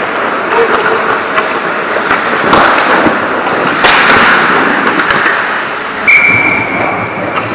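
Ice hockey play around the goal: skates scraping the ice, sticks clacking, and sharp puck impacts, the loudest about four seconds in as a shot comes on net. A steady high tone starts about six seconds in and holds for over a second.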